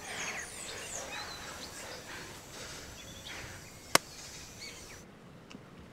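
A single sharp hand slap of a high five about four seconds in, over a soft outdoor background with high chirps early on.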